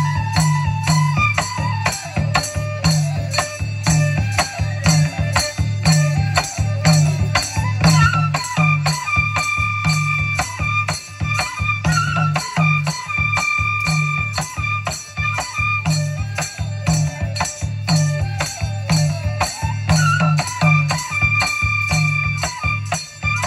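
Live Bodo traditional folk dance music: drums beat a steady low rhythm while a rattling percussion part keeps fast, even time over it. A high melody instrument winds around at first, then plays long held notes from about eight seconds in.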